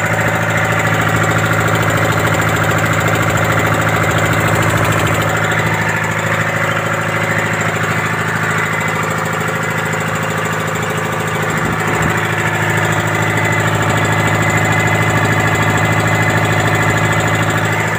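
Turbocharged Detroit Diesel two-stroke engine running at a steady speed, a loud, even drone with no change in pitch.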